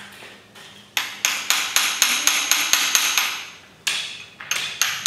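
Steel hammer striking a driver held against the timing-chain crank gear of a Chrysler 440 big-block, driving the gear onto the crankshaft snout. A quick run of sharp, ringing metal blows, about four a second, starts about a second in. After a short pause near the end a few more blows follow.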